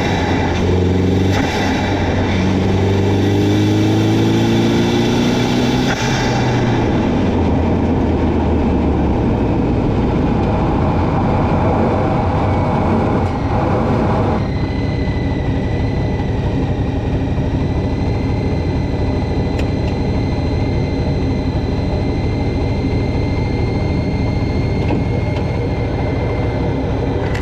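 Turbocharged DSM four-cylinder engine heard from the engine bay while driving. Its pitch climbs repeatedly under acceleration in the first several seconds, then it settles into a steady run. From about halfway a steady high whine joins it.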